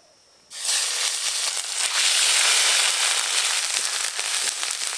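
Ginger paste dropped into hot oil in a wok, bursting into a loud sizzle about half a second in, then frying steadily with dense crackling as it is stirred.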